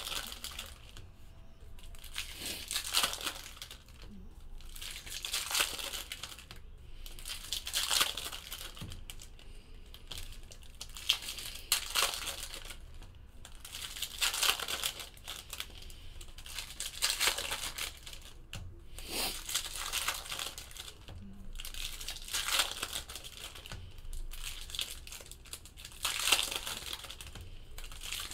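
Foil trading-card pack wrappers being torn open and crinkled by hand, in repeated crackling bursts every second or two.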